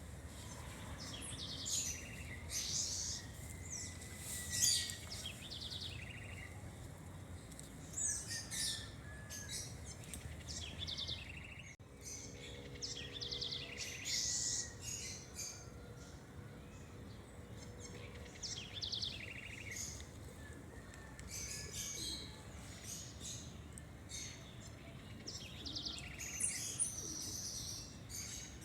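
Several birds chirping and calling over one another: many short high calls and quick buzzy trills, with a faint low rumble underneath.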